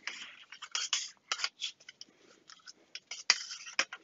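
Irregular small clicks, scrapes and rattles of hands working at the back of a metal-cased C1-93 oscilloscope, with a louder click a little after three seconds in.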